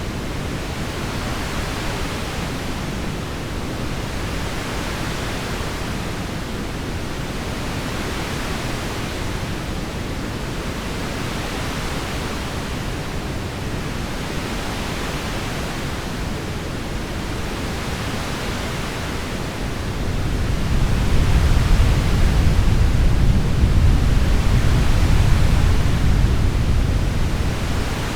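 Heavy rain falling in a steady hiss. About two-thirds of the way through, a low rumble of thunder swells, rolls for several seconds and fades away.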